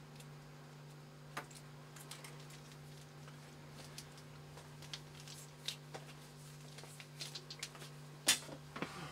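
Faint, scattered clicks and rustles of small handling noises over a steady low hum, with the sharpest click near the end.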